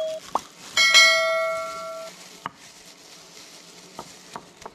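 An electronic bell ding rings out about a second in and fades over about a second: the sound effect of an on-screen subscribe-button animation. A few single knocks of a stone pestle against a stone mortar follow.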